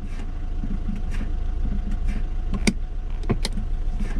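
Several sharp metallic clicks and knocks over a steady low rumble, from a seized rear handbrake mechanism being worked back and forth to free it up.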